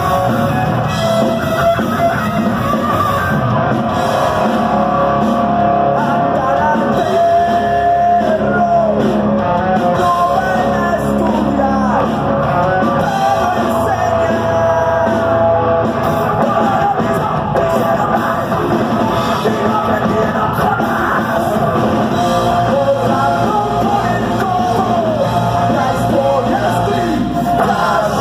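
A rock band playing live: electric guitars, bass and a drum kit, with a singer's voice over them, loud and continuous in a large hall.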